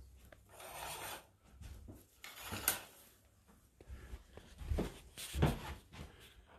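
Scattered rustling and rubbing handling noises in a small room, with a sharp click about two and a half seconds in and a couple of dull thumps near the end.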